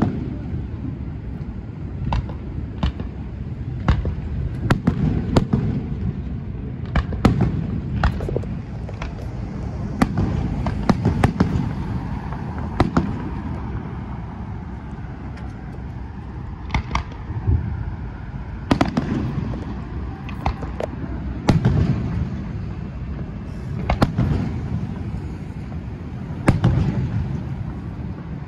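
Fireworks display: aerial shells bursting in sharp, irregular bangs, often a second or less apart, over a low rumble. The bangs thin out for a few seconds midway, then pick up again.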